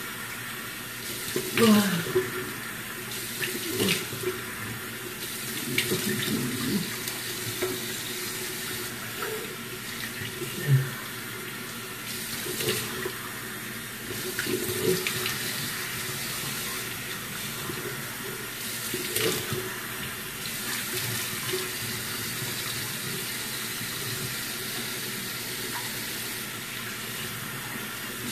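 Bathroom sink tap running steadily, with several irregular splashes as water is scooped up in the hands and splashed onto the face to rinse it.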